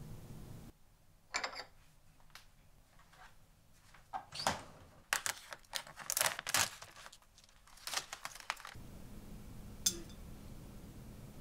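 Plastic film on a supermarket tray of sliced pork being peeled and torn open: irregular crinkling and sharp tearing crackles, loudest in the middle stretch. A single click near the end.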